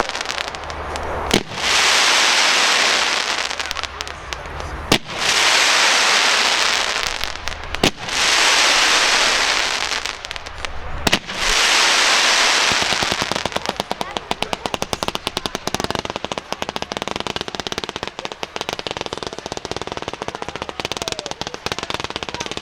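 Fireworks going off: four sharp bangs a few seconds apart, each followed by a couple of seconds of loud hissing crackle, then, from about halfway, a long run of rapid crackling pops.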